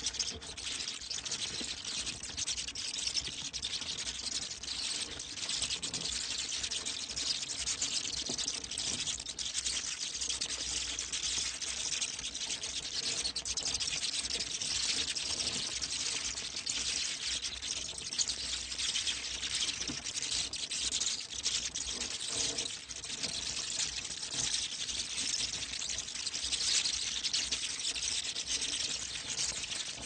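Bat calls: a dense, continuous stream of high squeaks and clicks.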